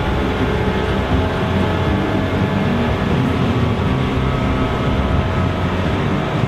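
Fendt 1050 Vario's six-cylinder diesel engine running steadily close by.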